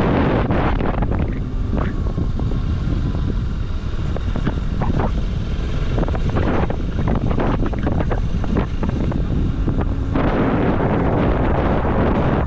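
Wind buffeting the microphone of a camera on a moving motorcycle, over the bike's engine and road noise. The wind eases about a second in and rises again strongly near the end.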